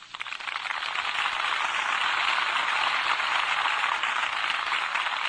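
Large crowd applauding after a line of a speech: the clapping builds within the first second, then holds steady and eases slightly near the end. It is heard on an old, thin-sounding recording.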